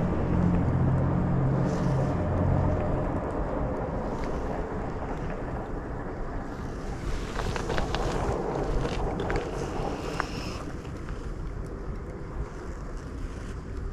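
Low engine hum that fades away, with wind buffeting the microphone. A few light clicks come around the middle.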